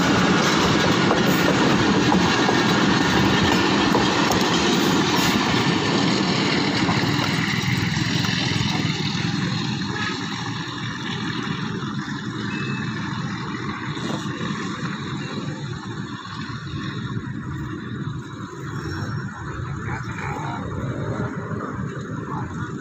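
Passenger train coaches running past at speed, wheels rolling on the track. About ten seconds in, the sound falls away as the last coach draws off into the distance.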